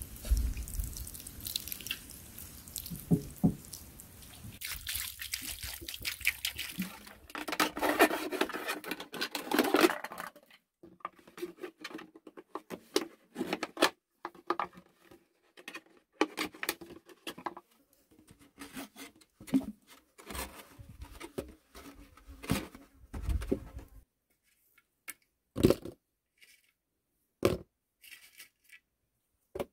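Water trickling and dripping from a bamboo pipe onto soil, then a knife cutting into a plastic bottle, with quick irregular crackling of the plastic. Near the end come a few separate sharp knocks as lumps of charcoal are broken up and handled.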